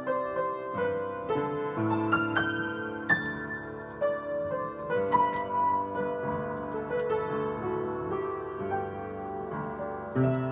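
Piano playing a slow melody over sustained chords, note by note with clear attacks.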